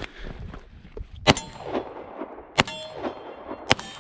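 Three pistol shots about a second and a quarter apart, each followed by a ringing metallic clang from the steel targets being hit.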